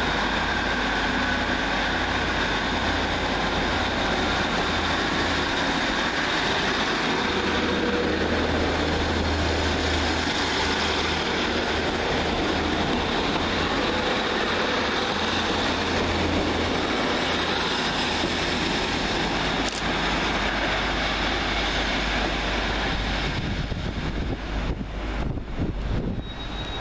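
Two coupled Class 150 Sprinter diesel multiple units pulling out, their underfloor diesel engines running hard under power with a steady low rumble. The sound eases off and dies away near the end.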